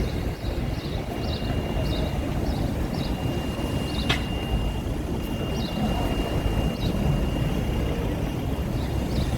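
Street ambience dominated by a steady low rumble of traffic, with a row of short high chirps and a faint steady high tone over it, and one sharp click about four seconds in.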